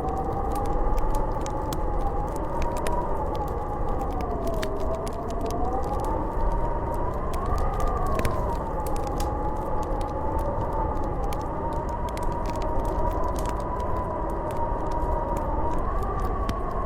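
Snowstorm wind howling: a whistling tone that slowly rises and falls over a low rumble, with the scattered small crackles of a wood fire in a fireplace.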